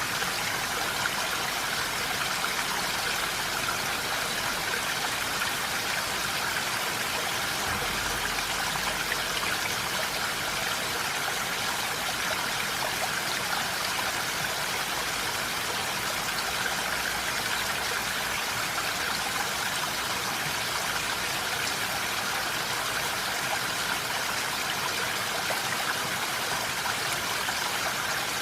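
Steady rain falling, an even constant hiss without pauses or distinct drops.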